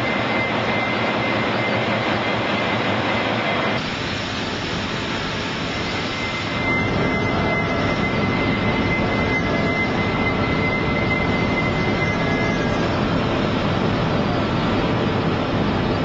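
Forklift running with its hydraulics working a rotating coil clamp: a steady mechanical noise with a thin, high, steady whine. The noise dips briefly about four seconds in and comes back louder about two and a half seconds later.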